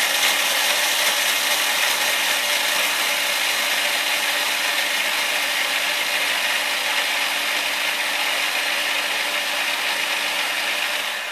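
Loud electric kitchen grinder motor running steadily as it grinds graham crackers into crumbs, then cutting off near the end.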